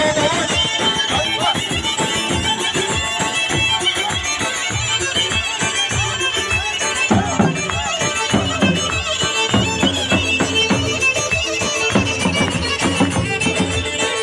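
Live traditional Turkish folk dance music: a davul drum beats a steady rhythm under a sustained lead melody.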